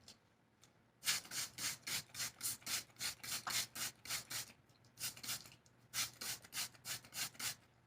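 Spray bottle squirting water onto a wig's hair in quick spritzes, about four a second, in two runs with a short pause in the middle, wetting the hair.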